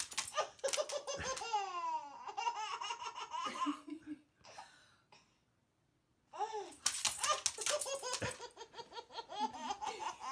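A baby laughing hard in repeated bursts of giggles, stopping for about two seconds in the middle before laughing again.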